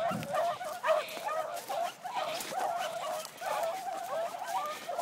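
A pack of beagles baying together, several hounds' wavering, overlapping voices in a continuous chorus: the pack giving tongue as it runs a scent line.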